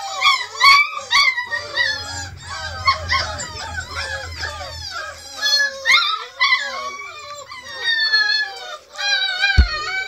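A litter of beagle puppies whining, yelping and howling together, many high-pitched cries rising and falling over one another without a break. A single dull thump near the end.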